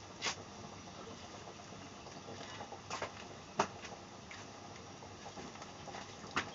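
Faint steady hiss of a pot of water at the boil, with four short sharp clicks and knocks from handling at the pot. The loudest comes about three and a half seconds in.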